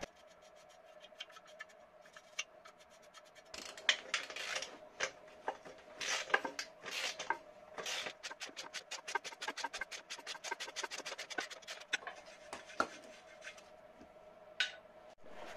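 Socket ratchet clicking in quick runs of strokes, with light metal scraping, as a rusted nut on an exhaust flange is turned.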